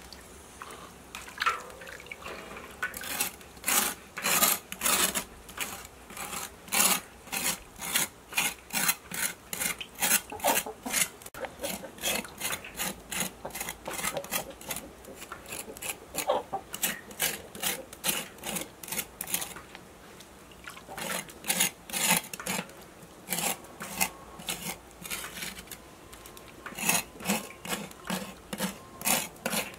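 Cleaver blade scraping the singed, blackened skin off a pig's foot: quick rasping strokes, about two a second, with a few short pauses.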